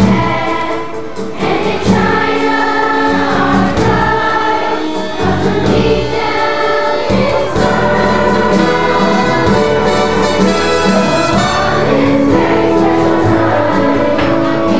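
A choir singing a song in long held notes.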